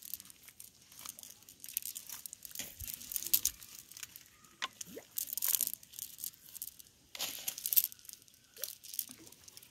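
Nylon cast net rustling and crackling against the grass as it is lifted and shaken, in several bursts.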